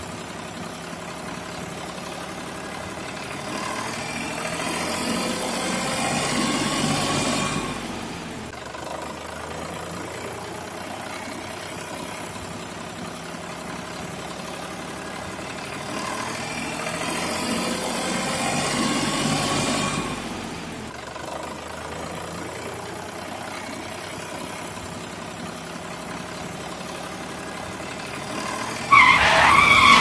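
Tractor engine sound effect running steadily, swelling twice as if revving, once about four seconds in and again about sixteen seconds in. Near the end a sudden, much louder sound cuts in.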